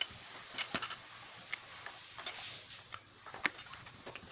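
Scattered light clicks and taps as small metal and plastic drill parts are picked up and handled on a tabletop and the drill body is lifted and fitted, over a steady hiss. A quick cluster of clicks comes a little after the start and a sharper tap about three and a half seconds in.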